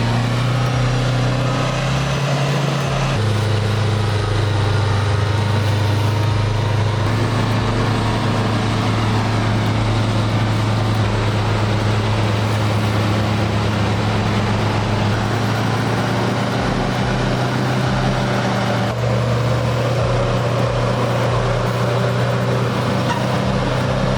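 Heavy diesel engines of an excavator and a mud-bound 8x8 military truck running steadily under strain during a cable recovery, a strong low drone. The sound shifts abruptly about three seconds in and again about nineteen seconds in.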